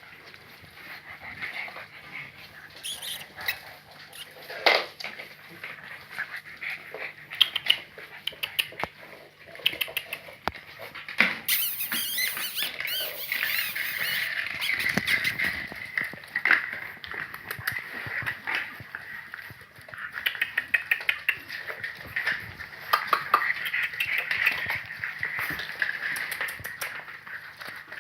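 A litter of French bulldog puppies squeaking and whimpering, many short high cries overlapping, with scattered small clicks and knocks.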